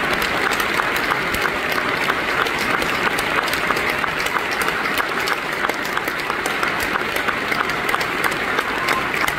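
Theatre audience applauding: steady, dense clapping from many hands.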